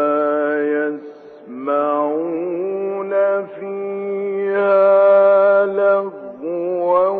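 A man reciting the Quran in Arabic in a melodic, chanted tajweed style, drawing the vowels out into long held notes. There is a brief pause about a second in and a long sustained note through the middle.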